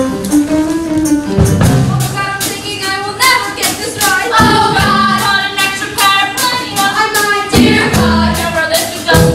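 Young female voices singing a musical-theatre song over backing music, with light percussion ticking along in a steady beat.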